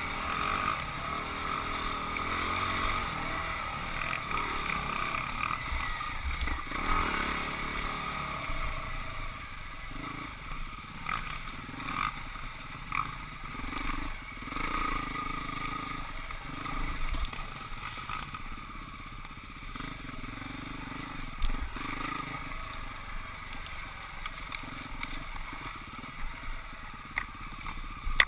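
Husqvarna 449 dirt bike's single-cylinder engine running under a rider on a trail, its pitch rising and falling as the throttle opens and closes, over wind noise and short knocks and clatter.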